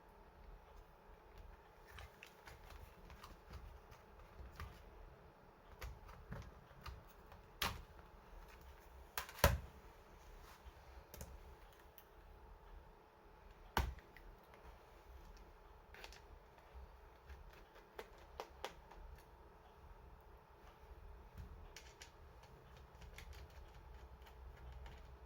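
Scattered small clicks and taps of a laptop's plastic and metal parts being handled, with three louder knocks spread through the stretch.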